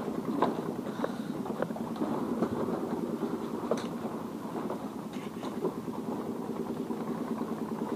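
Footsteps on a walkway of lashed bamboo slats, the bamboo creaking and clattering underfoot with a few sharper knocks.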